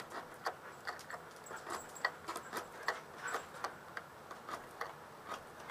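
Hand can opener cutting through the thin steel lid of a sealed Soviet surplus ammunition tin, making irregular sharp clicks about three a second as it is levered along the edge.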